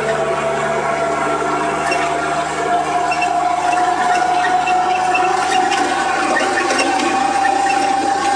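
In-cab noise of a 1941 Chevrolet G7113 truck's straight-six petrol engine driving steadily along the road, with a whine that rises slowly in pitch.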